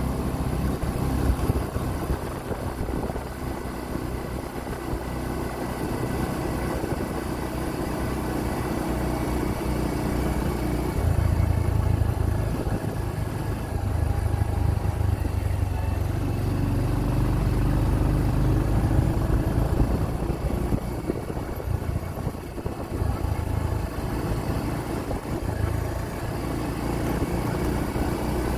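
Motorcycle engine running under way, a steady low drone that shifts in pitch with the throttle and grows louder about eleven seconds in.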